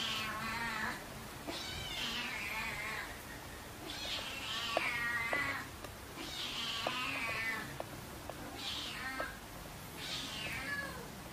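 Siamese cat meowing over and over, about six meows each sliding down in pitch, one every second and a half to two seconds, with a few faint clicks in between.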